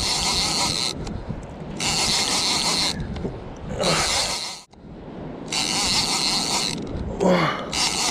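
Fishing reel being wound by hand in short spurts of about a second, its gears whirring and ratcheting, with brief pauses between turns.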